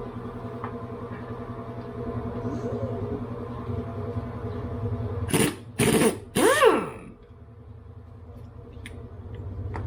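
A steady mechanical hum, cut about halfway through by three short, loud bursts of a power tool, the last whirring up and back down in pitch.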